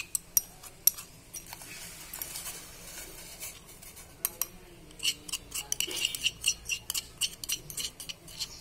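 A steel spoon clinks and scrapes against a small bowl and the rim of a steel pot, scraping ground spice paste into the water. It makes a run of sharp, irregular clinks that come thickest in the second half.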